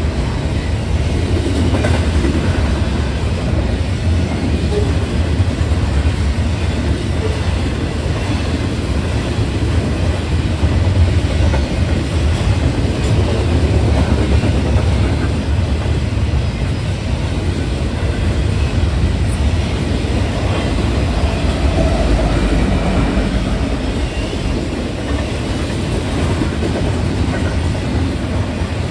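Union Pacific intermodal stack train rolling past at close range: a steady, loud low rumble with the clickety-clack of the car wheels on the rails.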